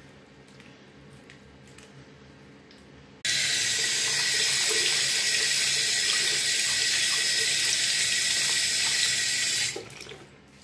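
Bathroom sink tap turned on about three seconds in, water running steadily onto hands being washed, then shut off abruptly near the end.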